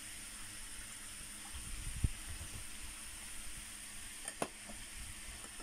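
Bok choy and mushrooms sizzling softly in a stir-fry pan, a steady hiss, with a low knock about two seconds in and a short click a couple of seconds later.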